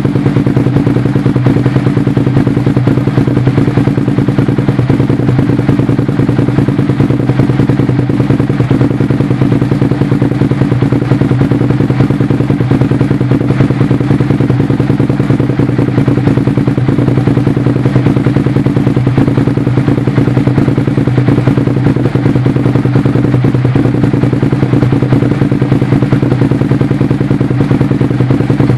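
Suzuki SV650S's 645 cc V-twin idling steadily through a Micron slip-on exhaust can, heard right at the outlet, with no revving.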